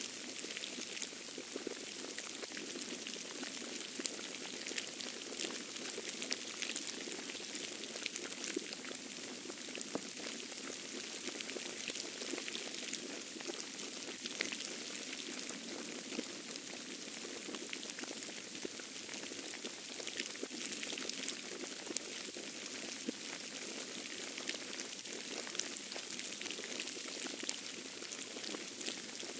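Falling snow pattering steadily, a dense fine crackle like light rain.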